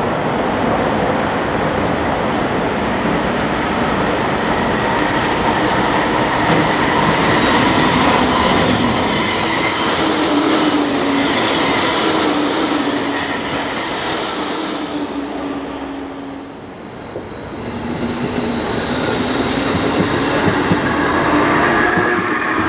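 JR Kyushu 813 series electric train running in close past the platform, wheels on rails and motors sounding with a tone that falls in pitch as it goes by. After a brief lull about three quarters of the way in, an 811 series electric train comes by on the other track.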